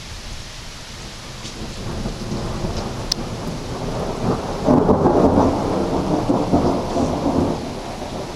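Thunder rumbling over steady rain. The rumble builds, is loudest about five seconds in, and fades toward the end.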